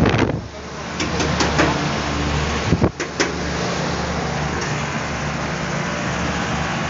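Steady mechanical hum of rooftop air-conditioning outdoor units running, with a few sharp metallic clicks and clanks around a second in and again about three seconds in.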